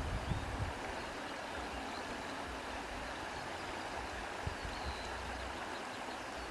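A sewing machine stops stitching within the first second. Then the fabric rustles softly as it is lifted and repositioned at the machine, over a steady faint hiss.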